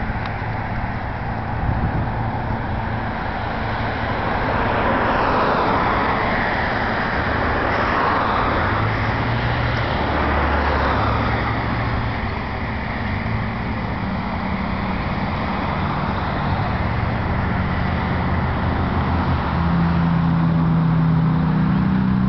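Road traffic: cars passing by, with a couple of louder passes that sweep past, and a vehicle engine running with a steady low hum that grows stronger near the end.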